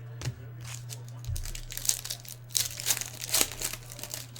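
Trading-card pack wrapper being torn open and crinkled in the hands: a run of irregular crackles, over a steady low hum.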